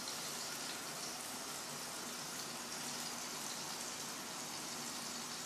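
Beef burger patties frying in olive oil in a pan, a steady sizzle.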